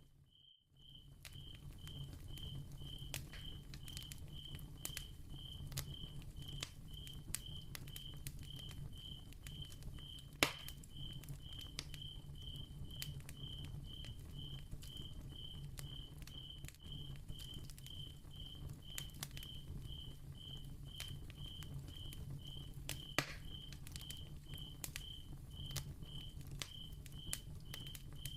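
Candle crackling, with many small ticks and pops and two louder pops, over a steady low hum. A cricket chirps evenly, about twice a second, throughout.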